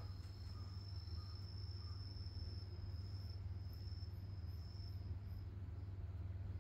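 An insect trilling: one steady high tone that fades out about five seconds in, over a low steady rumble.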